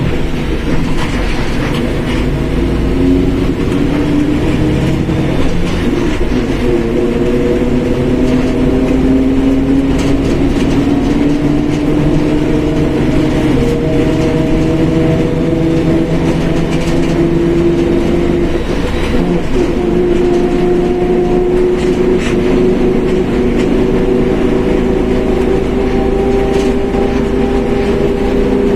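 Mercedes-Benz OF1721 bus differential whining over the steady run of the diesel engine. The whine's pitch climbs slowly as the bus gathers speed and steps back down a few times.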